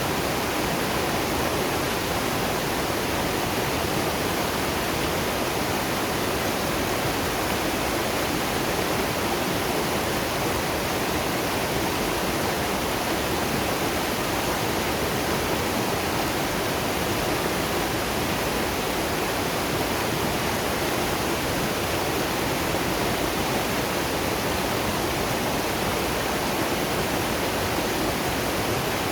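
Waterfall and river water rushing steadily, an even hiss with no breaks or changes.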